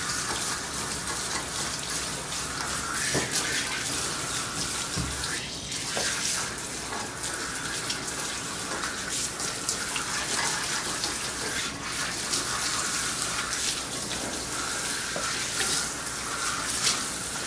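Water spraying steadily from a handheld nozzle on a coiled hose, rinsing shampoo out of a wet dog's coat and splashing down into a bathtub.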